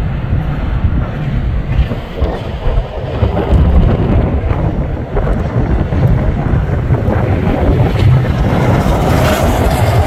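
Wind buffeting the microphone over a steady low rumble, recorded from a car pacing a freight train hauled by diesel locomotives. It gets somewhat brighter and hissier near the end.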